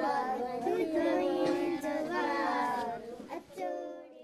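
A group of young girls singing together in unison, their voices holding and gliding through long notes before trailing off near the end.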